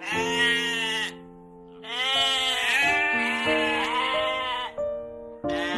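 Repeated bleating, several wavering calls of about a second each, over background music with steady held notes.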